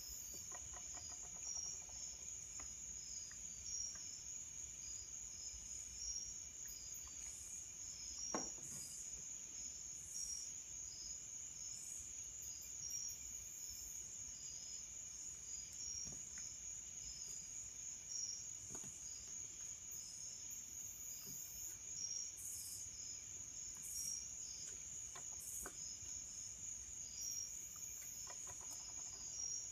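A few soft taps and knocks as balsa tail parts are handled and pressed down on a workbench, over a steady high-pitched chirring background with short repeating pulses.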